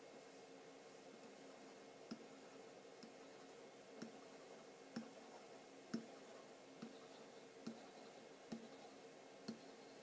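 Marker tip tapping dots onto a whiteboard, one short click roughly every second starting about two seconds in, over a faint steady hum.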